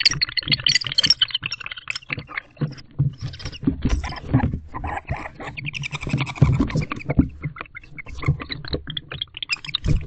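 Barn owls scuffling during a mating attempt: wings, feathers and talons brushing, scraping and bumping against the wooden nest box right at the microphone. Rapid runs of high scratchy clicks come in the first couple of seconds and again midway, with several dull thumps.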